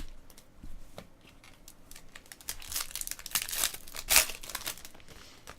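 Trading card pack wrapper being torn open and crinkled: a rustle of crackling plastic that grows denser through the middle and peaks in one sharp rip.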